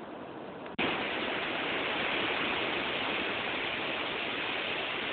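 Ocean surf: a steady roar of breaking waves on a beach, which jumps abruptly louder about a second in.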